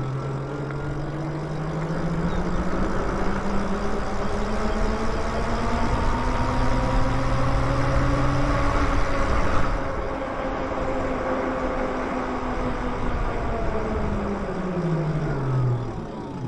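Lyric Graffiti e-bike's electric motor whining, rising in pitch as the bike speeds up, holding, then dropping quickly as it slows near the end, over steady wind and tyre noise.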